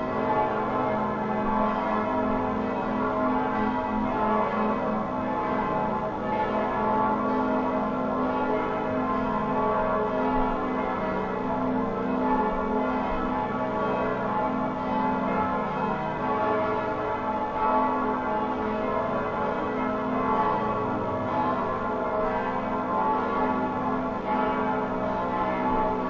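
Church bells ringing together in a continuous peal, several bells overlapping with no pause.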